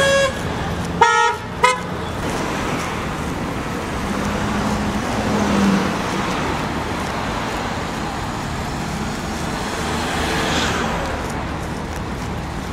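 A vehicle horn toots three times in quick succession in the first two seconds, over steady road traffic noise.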